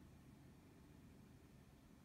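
Near silence: faint low room tone, with no distinct calls or other events.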